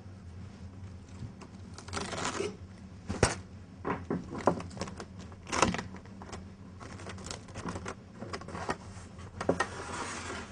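Plastic cling film crinkling and rustling in irregular bursts as it is pulled taut and pressed over a metal baguette tray, with a few sharp clicks and taps in between.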